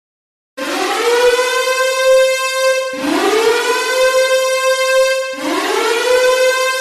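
Silence, then about half a second in a warning siren starts: a loud wail that climbs quickly to a steady high tone and holds it, cut off and started again about every two and a half seconds, three times.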